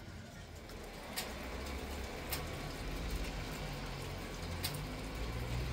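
Steady rain falling, with a few sharp drips tapping close by and a low rumble underneath.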